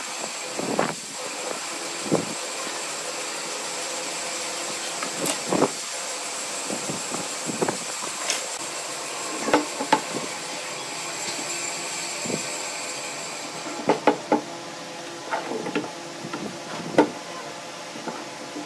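Scattered knocks and clicks as carved wooden pieces and a steel square are handled and set down on a wooden workbench, with a cluster of knocks near the end as one piece is lifted and stood upright. A steady mechanical hum runs underneath.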